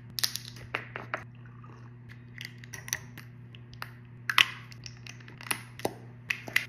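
A small foil packet being torn and peeled open, then scattered clicks, taps and crinkles as small plastic makeup items are handled, over a steady low hum.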